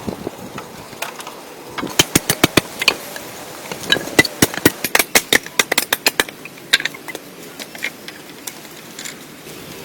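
Quick runs of sharp clicks or knocks, several a second, starting about two seconds in and thinning out near seven seconds, over a steady hiss.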